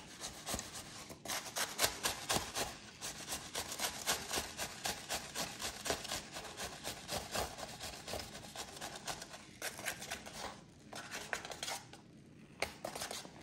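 Rapid, uneven scratchy rubbing and rustling of foam beads being pushed with a stick through a rolled paper funnel into a plastic Bobo balloon, thinning out near the end.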